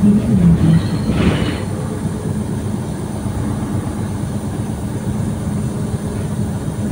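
Inside a moving bus cabin: a steady whistling hiss like escaping air over the engine and road rumble, with a brief louder hiss about a second in. It is not the air conditioning; it is a known fault that the driver says the bus will go in for repair over.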